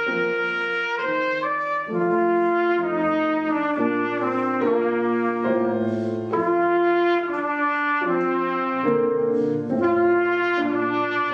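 Trumpet playing a slow melody of held notes, moving to a new note about once a second, with grand piano accompaniment.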